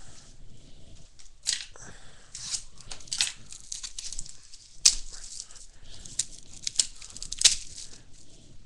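Trading-card pack wrapper being torn open and crinkled, with the cards inside handled. It comes as a run of short rustles, with two sharper snaps, one about halfway through and one near the end.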